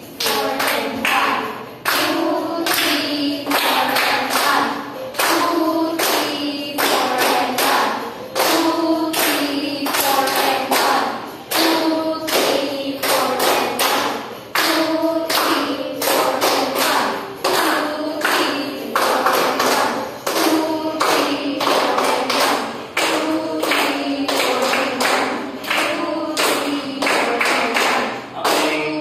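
Hand-clapping in a steady, even beat to keep time for cha-cha dance steps, with a voice singing along over the claps.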